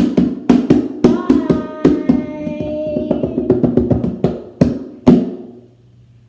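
Short burst of music: a fast run of drum hits with held melody notes over them, cutting off about five and a half seconds in.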